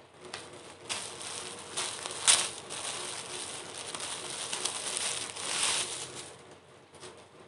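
Clear plastic garment packaging crinkling and rustling as it is handled and opened, with a sharp crackle about two seconds in and another louder stretch near six seconds.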